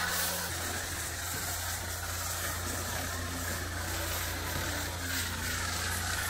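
A steady, low mechanical hum of a running machine, with an even hiss over it.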